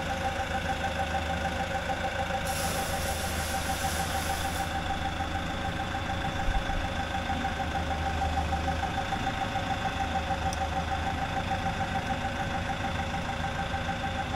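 Forklift engine running at idle, a steady hum with a slightly pulsing tone, while it holds a suspended hydrostatic pump. A single light knock about halfway through.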